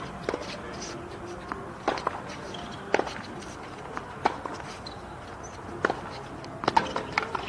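Tennis rally: a string of sharp racket-on-ball hits, roughly one every second or so, with players' footsteps on the hard court between them.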